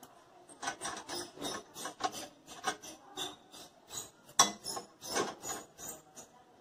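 Allen key turning countersunk screws into a metal luggage-carrier plate: a run of short, irregular metallic scrapes and clicks, the loudest about four and a half seconds in.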